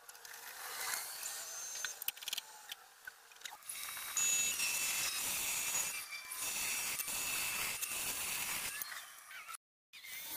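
Padauk blank spinning on a wood lathe being cut with a hand-held turning tool: a steady scraping hiss of the tool shaving the wood, starting about four seconds in after a few clicks and knocks. The sound drops out abruptly for a moment near the end, then the cutting resumes.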